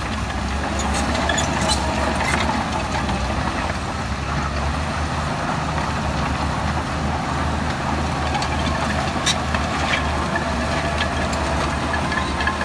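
Heavy diesel earthmoving machinery running steadily with a low rumble, with a few short metallic clanks.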